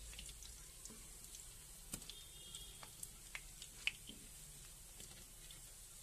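Semolina patties shallow-frying in oil in a pan, the oil sizzling faintly, with scattered sharp pops and clicks.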